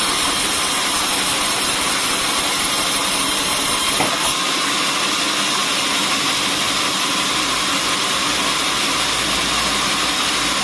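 Sawmill saw running and cutting wood: a loud, steady mechanical noise, with a short knock about four seconds in.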